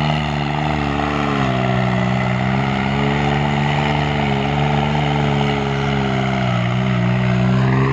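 New Holland 3630 tractor's three-cylinder diesel engine running steadily while the tractor is driven wheeling on its rear wheels. Its pitch dips a little now and then and rises near the end.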